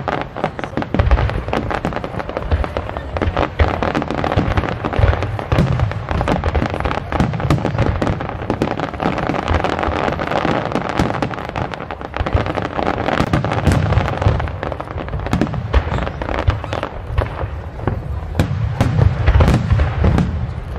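Aerial fireworks display: a rapid, unbroken run of shell bursts, many sharp bangs over deep booms.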